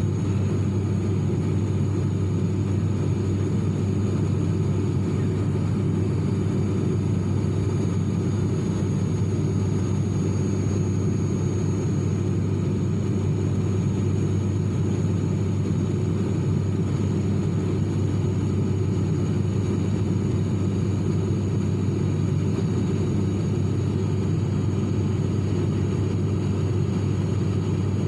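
Steady drone of an airliner cabin in flight: an even, low engine and air rumble with a thin high whine over it.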